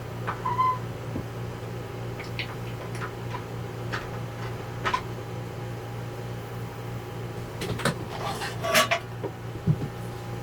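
Scattered light knocks and clicks, a few with a brief ring, bunched most densely about eight to nine seconds in, over a steady low hum.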